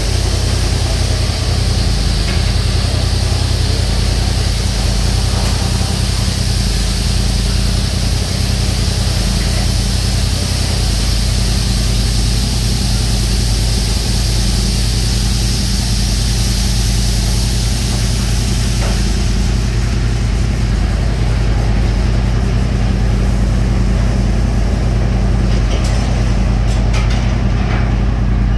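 Touchless automatic car wash at work: high-pressure water jets hissing over a side-by-side UTV against a steady low mechanical hum. About two-thirds of the way through the spray hiss cuts off, leaving the hum and a few light clicks.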